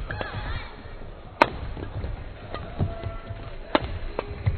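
Badminton rackets striking the shuttlecock in a fast doubles rally: sharp cracks about once a second, the loudest about one and a half seconds in, mixed with short squeaks from the players' shoes on the court mat.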